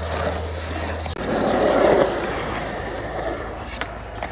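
Skateboard wheels rolling over a concrete skatepark, a steady rumble that swells about a second in, then a sharp clack right at the end.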